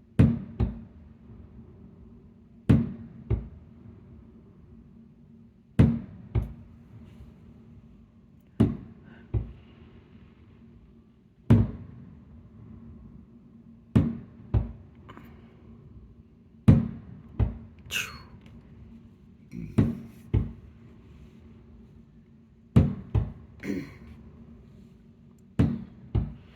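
Aerial fireworks bursting at a steady pace, a loud bang about every three seconds, each usually followed by a second, quieter bang about half a second later, over a steady low hum.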